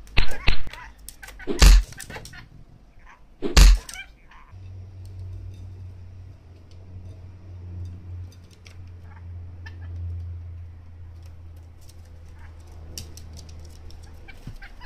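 Several loud, sharp bird squawks in the first four seconds. After that, a low steady hum with scattered faint clicks.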